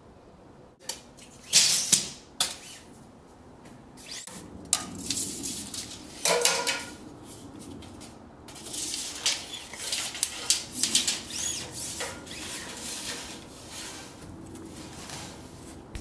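Irregular rustling and scraping of wire or string being handled and pulled against wooden attic joists, with a few knocks, loudest about one and a half to two seconds in.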